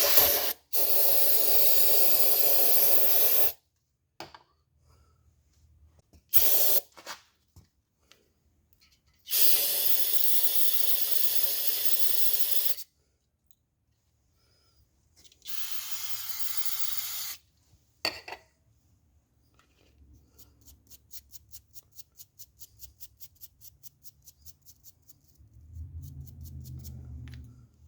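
Compressed air hissing in three bursts of about two to three seconds each, around the threaded water pump bolt hole of a 350 Chevrolet block. These are followed by a run of fast, even clicks, about six a second.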